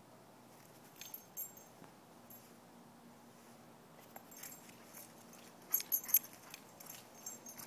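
Excited Dalmatian giving short, high-pitched yelps and whimpers while playing, a couple about a second in and a quicker cluster about six seconds in.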